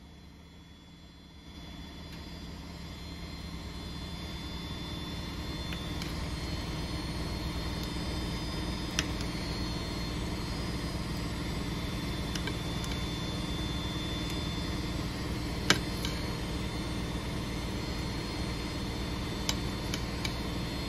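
Washing machine running, its hum building up over the first few seconds and then holding steady. A few light clinks of a carving knife against a china plate as beef is sliced.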